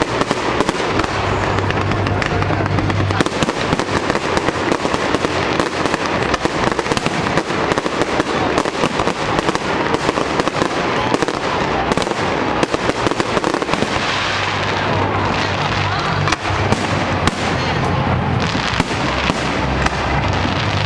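Aerial fireworks display: a dense, continuous barrage of bangs and crackles, many per second, with no pause.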